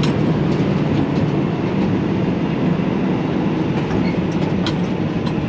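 Dump truck driving, heard from inside the cab: a steady engine drone with road rumble.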